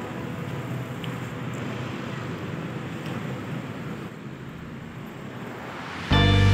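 Street traffic noise: a steady rush of passing cars and motorcycles heard while walking beside the road. Near the end, loud music cuts in suddenly.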